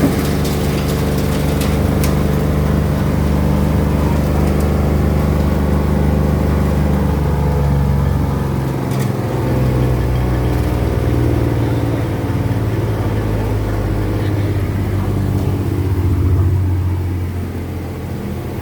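Engine-driven cocopeat and coco fibre machine running with a steady low drone. Its pitch shifts slightly about halfway through, and there are a few light clicks in the first couple of seconds.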